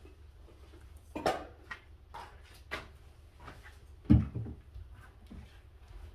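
Knocks, clicks and rustles of gear and bottles being handled among bags, with a sharper knock about a second in and a heavier thump about four seconds in.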